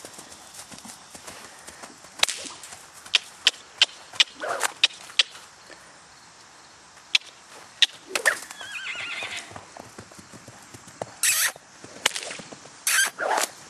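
A yearling Quarter Horse–Paint gelding's hooves knocking on hard ground in irregular single strikes, with a few short rough noises near the middle and the end.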